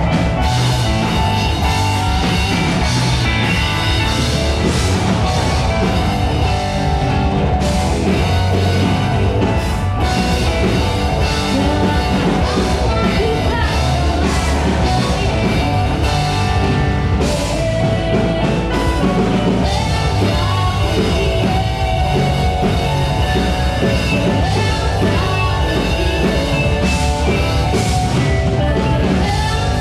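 Live rock band playing through a PA system: drum kit, electric guitar and keyboard, with a singer's voice over them.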